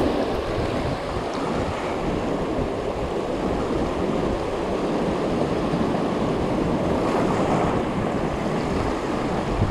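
Surf surging and washing over a rocky reef shoreline, a steady rushing of water, with wind buffeting the microphone.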